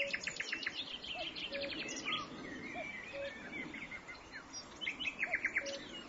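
Common cuckoo calling its two-note, falling 'cuck-oo' three times at a steady pace, low under a common nightingale's song of rapid repeated notes and varied phrases. The nightingale's fast trills are loudest at the start and again near the end.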